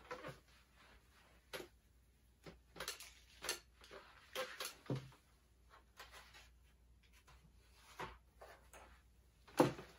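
Scattered soft clicks and taps of drawing materials being handled and set down, about nine in all, with the sharpest knock near the end.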